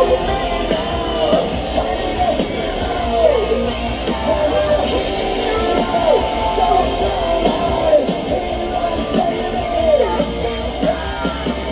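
Rock band playing live at full volume: distorted electric guitars, drums and shouted, sung vocals, recorded on a phone from within the crowd.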